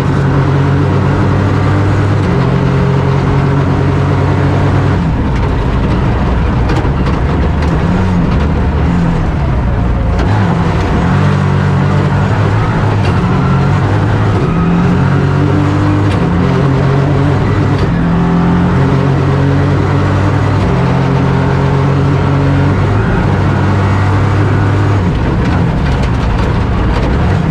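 Toyota GR Yaris AP4 rally car's turbocharged three-cylinder engine at full effort, heard from inside the cabin. The revs climb and drop again and again through gear changes over a constant loud din of tyre and road noise.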